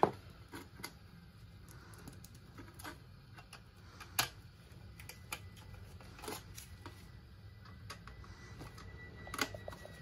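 Scattered small clicks and taps of a screwdriver and sheet-metal bracket as a boiler's ceramic roll-out switch is refitted to it, with sharper clicks about four, six and nine seconds in, over a low steady hum.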